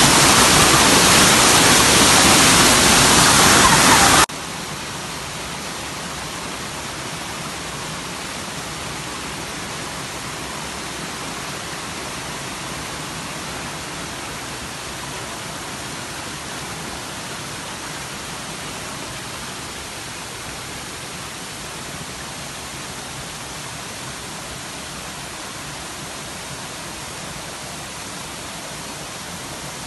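Tall waterfall, falling water rushing in a steady, even hiss. It is loud at first and drops suddenly to a quieter steady rush about four seconds in.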